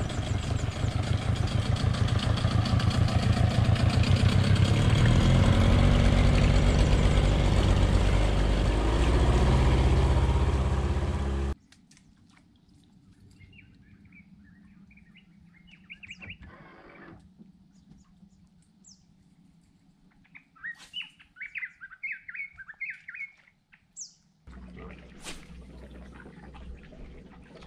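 A boat motor running loudly with its pitch rising, ending at an abrupt cut about eleven seconds in. Then quiet, with small birds chirping in short bursts, and a low steady hum near the end.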